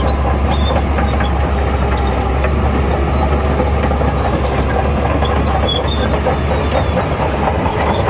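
Bulldozer running steadily, its diesel engine's deep drone under the clatter of steel crawler tracks, with short high squeaks from the track links.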